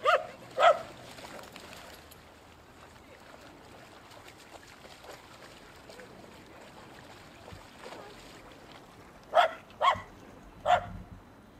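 Dog barking in short single barks: two at the start, then three more about nine to eleven seconds in.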